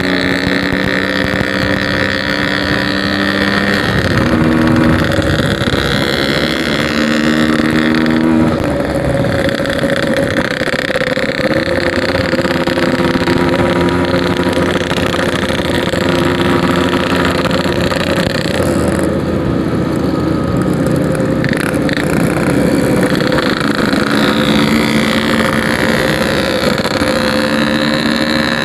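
Yamaha RX-King 135cc two-stroke motorcycle engine being ridden, its pitch rising and dropping several times as the rider works through the gears, with wind and road noise on the mic.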